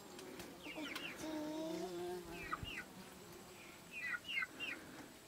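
Chickens chirping and clucking: small clusters of short, falling chirps come three times, with one drawn-out lower call about a second in.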